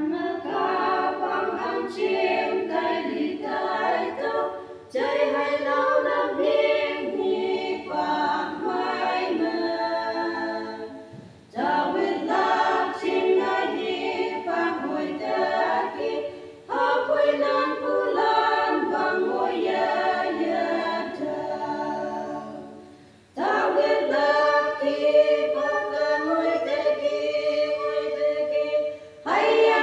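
Small women's choir singing a hymn a cappella, in phrases of about five or six seconds with brief pauses for breath between them.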